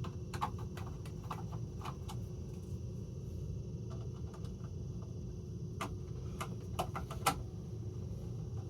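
Small screwdriver loosening screws on a horn strobe's metal mounting bracket: scattered light clicks and ticks, with a few sharper clicks near the end, over a low steady rumble.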